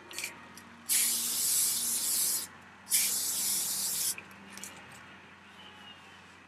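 Hairspray sprayed onto hair in two hissing bursts of about a second and a half each, with a short gap between them.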